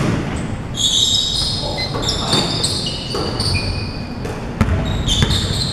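Basketball game on a wooden court: many short high-pitched sneaker squeaks as players cut and stop, with a few sharp thuds of the ball bouncing, in a large hall.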